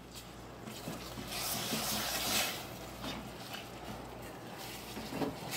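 A spatula stirring sugar, milk and melted butter in a metal saucepan: a soft, gritty scraping of the undissolved sugar against the pan, swelling for about a second from a second and a half in, with a few light ticks later.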